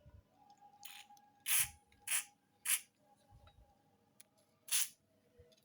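Aerosol can of WD-40 sprayed in about five short hissing bursts, penetrating oil sprayed onto a seized engine to free it up.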